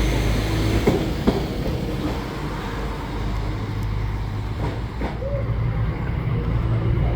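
Train running on the rails with a steady low rumble and a few sharp clicks.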